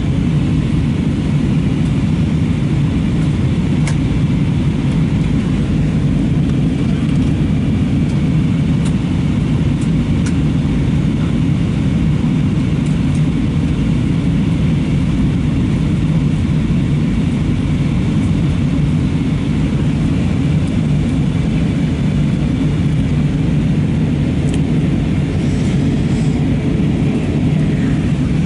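Steady cabin noise inside an Airbus A320-232 in flight: a constant low drone of airflow and its IAE V2500 turbofan engines, heard by a window seat.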